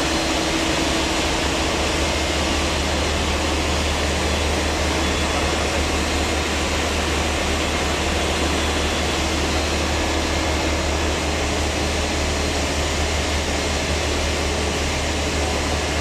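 Passenger launch's engines running with a steady, unbroken low drone, heard through the vessel.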